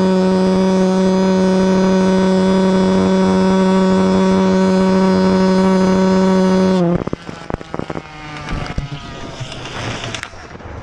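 AM6 two-stroke engine with a CNC cylinder and 49 mm piston on a motorized bicycle, running at high, steady revs at speed. About seven seconds in its note breaks off abruptly, leaving fainter falling tones, clicks and wind.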